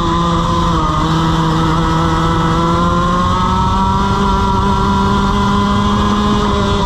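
Onboard sound of a racing kart's 125cc two-stroke TaG engine under load, heard from the kart itself. The engine note sags slightly in the first second, then climbs gradually as the kart drives out and gathers speed.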